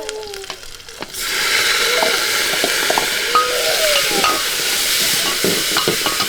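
Hot oil in a pan breaks into loud, steady sizzling as food goes in about a second in. Stirring clinks and scrapes are heard over the frying.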